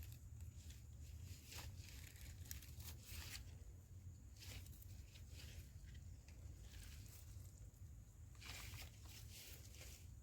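Faint, irregular rustling and crunching of footsteps through dry forest leaf litter, over a low steady rumble.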